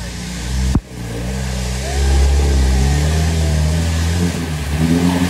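A 4x4's engine is revved hard and held at high revs as it ploughs through deep mud. There is an abrupt cut under a second in; after it the engine note climbs and stays loud until it stops sharply near the end.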